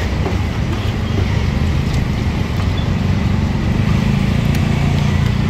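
Steady low engine rumble that grows a little louder about three seconds in, with a few faint clicks of metal ladles against the soup pan.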